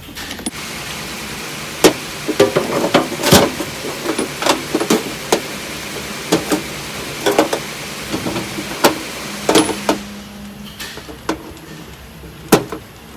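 Metal milling tooling (collets and tool holders) being handled and set down: irregular sharp clinks and knocks of metal on metal, busiest in the middle, with a few scattered ones near the end.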